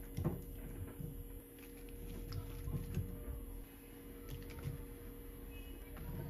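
Chunks of potato, onion and zucchini dropped by hand into a metal pot, landing with a few soft, irregular thuds over a steady low hum.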